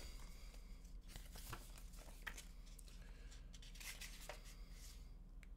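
Faint rustling and crinkling of a paper user manual being handled and unfolded, with a few soft ticks, over a low steady room hum.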